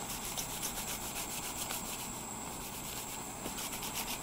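Two pieces of cardboard rubbing back and forth as a heat-softened rope end is rolled between them to form a stiff needle tip: a faint, even rasping at several quick strokes a second.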